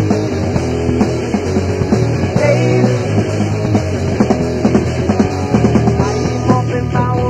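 Rock band recording: electric guitars, bass guitar and drums playing together with a steady beat.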